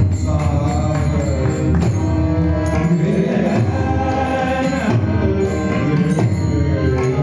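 Devotional bhajan singing, held sung notes with voices joining, over a mridang drum and regular cymbal strokes keeping the beat.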